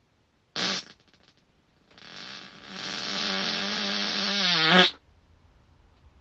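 A person farting: a short fart about half a second in, then a long, pitched fart of about three seconds that grows louder and ends with a sharp burst.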